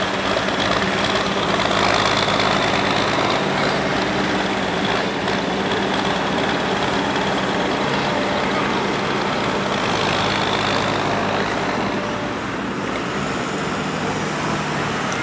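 Green John Deere tractor's engine running steadily, with a low, even hum under a wide noisy wash. The level drops a little about twelve seconds in.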